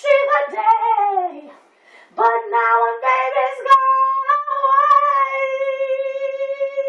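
Female voice singing unaccompanied. Over the first half it moves through a few sung phrases, then about halfway through it holds one long note with a slight waver.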